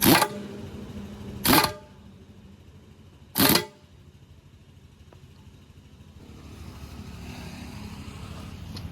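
Three short, loud horn honks, the second about a second and a half after the first and the third two seconds later, over an engine running in the background that drops away about four seconds in and builds again near the end.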